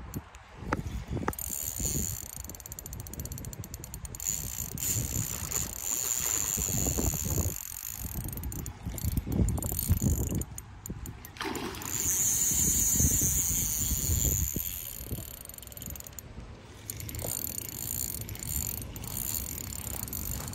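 Spinning reel's drag clicking rapidly as a hooked fish pulls line off, loudest about twelve seconds in. A low, uneven rumble sits underneath.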